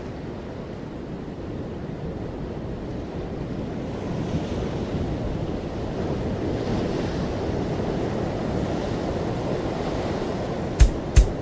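Steady rushing of wind and surf, with wind buffeting the microphone and gentle swells in the noise. Two sharp knocks come near the end.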